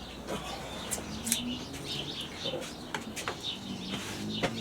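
Small birds chirping in the background with a dove cooing low, about halfway through and again near the end, and a few sharp clicks of handling.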